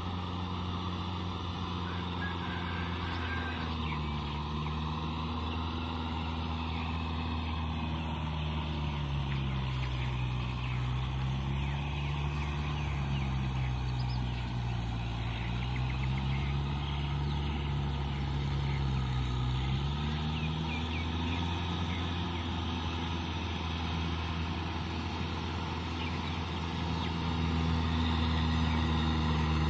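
Kubota tractor's diesel engine running steadily while it pulls a rotavator through a flooded paddy. The engine note sinks lower for about ten seconds midway, then climbs back, and it grows louder near the end as the tractor comes closer.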